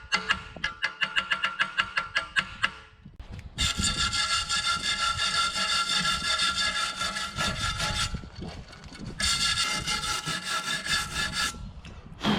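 Hacksaw cutting a small piece of steel, in two long runs of fast steady strokes with a metallic ring, pausing for about a second near the middle. It opens with a quick run of ringing taps lasting about three seconds.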